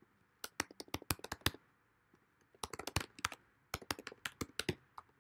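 Typing on a computer keyboard: three quick runs of keystrokes with short pauses between.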